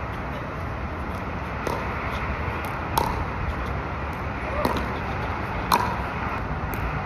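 Pickleball rally: a perforated plastic ball struck by hard paddles with a sharp pop about every one to one and a half seconds. The hits near the middle and near the end are the loudest, over steady outdoor background noise.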